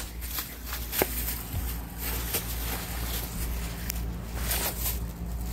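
A dog digging in loose dry dirt: soft, irregular scratching and scuffing, with a few faint clicks.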